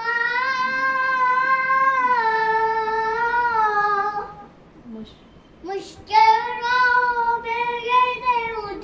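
A young boy singing without accompaniment: one long held note for about four seconds, a short break, then singing again.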